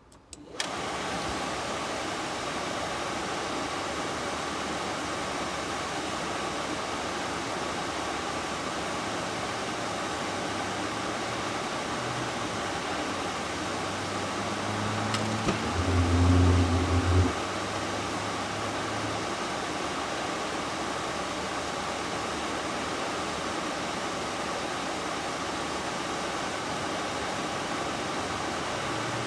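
RV furnace blower fan starting up about half a second in and then running steadily. About halfway through there is a click and a few seconds of louder low hum before it settles back to the steady run.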